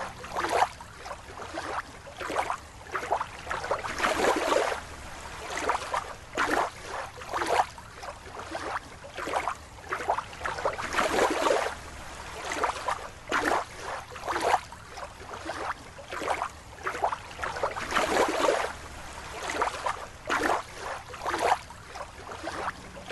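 Water bubbling and sloshing in repeated bursts, about one or two a second, some with short gurgling pitch glides.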